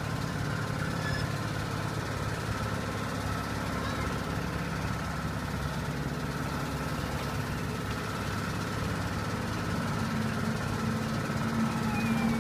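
Steady mechanical hum of a spinning flying-elephant kiddie ride's machinery as it turns, with a slightly higher tone joining near the end.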